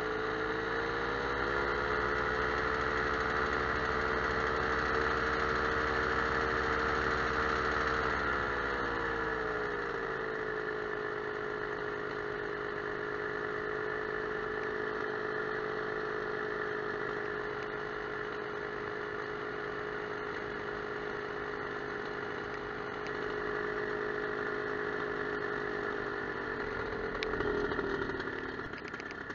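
Small aircraft engine running steadily in flight. It is throttled back about a third of the way in, holds the lower setting, then briefly rises and drops sharply near the end.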